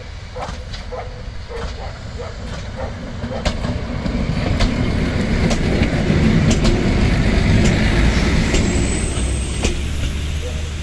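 A pair of coupled Romanian diesel railcars passing close by. Evenly spaced clicks of wheels over rail joints come first as it approaches. Engine and wheel rumble then grow loudest about six to eight seconds in as it goes past, with a thin high whine briefly near the end.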